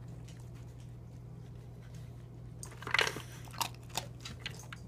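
Australian cattle dog crunching dry kibble from a plastic slow-feeder bowl: quiet at first, then a burst of crunching and clicks about three seconds in, with a few more scattered clicks after.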